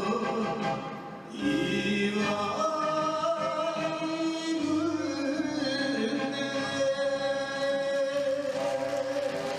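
Enka song with a singer over the backing music, holding long notes; the sound drops briefly about a second in, then resumes.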